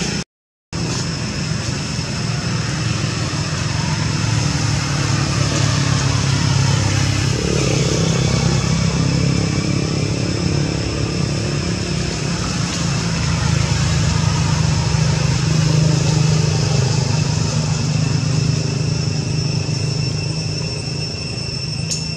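A steady low engine drone, like a motor vehicle running nearby, with thin high steady tones above it; the sound cuts out completely for about half a second near the start.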